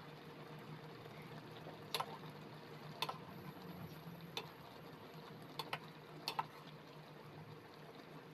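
A metal spoon clinking against a stainless steel pan while stirring vegetables and fish in broth: about six sharp, short-ringing taps, irregularly spaced, over a steady low hum.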